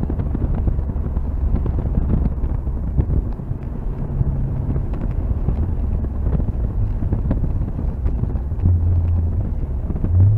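Mazda MX-5 NC's 2.0-litre four-cylinder engine, fitted with an aftermarket exhaust, and road noise heard from inside the cabin at track speed, mixed with heavy wind buffeting on the microphone. A low, steady engine note comes through the rumble a few times.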